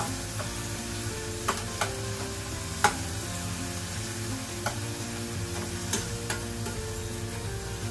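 Onions, garlic and tomatoes sizzling in oil in a pan as they are stirred with a spatula, with a few sharp clicks of the spatula against the pan, the loudest just under three seconds in.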